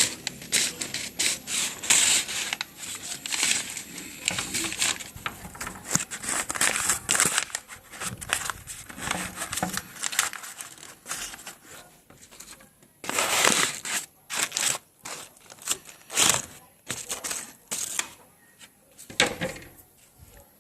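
Rustling and crinkling of something being handled and turned over, in irregular short bursts with brief pauses.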